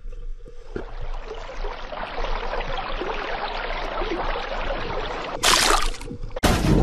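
Underwater noise picked up through an action camera's waterproof housing: a steady crackling, trickling hiss, with a louder rush of noise for about half a second near the end. Music starts just before the end.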